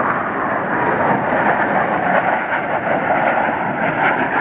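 Jet engines of a formation of Blue Angels F/A-18 fighter jets flying past, a steady rushing jet noise.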